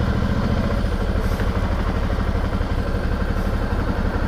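Motorcycle engine running steadily at low revs, an even, fast low pulsing, as the bike rolls slowly.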